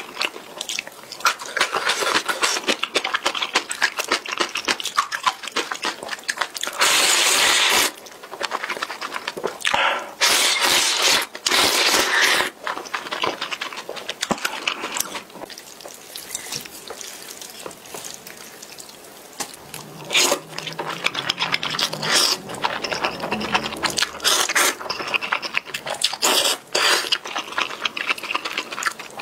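Close-miked eating of spicy instant noodles: wet slurping and chewing with lip smacks, with long slurps about seven seconds in and again around ten to twelve seconds.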